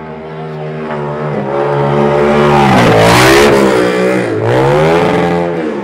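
Motorcycle engine revving as the bike rides past, growing louder to a peak around the middle and fading near the end. The pitch dips and climbs twice as the throttle is rolled off and back on.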